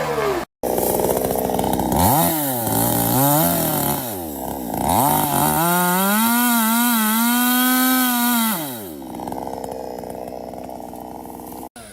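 Chainsaw engine revving up and down, then held at high speed for about three seconds as it cuts, before dropping back to a lower, rougher running note. The sound cuts out briefly near the start and again just before the end.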